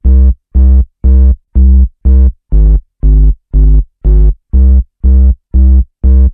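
Background music: short, low synthesizer notes repeating about twice a second, with a few changes of pitch. The music cuts off suddenly near the end.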